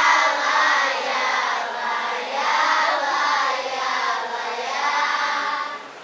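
A group of children singing together, with held, wavering notes, breaking off abruptly near the end.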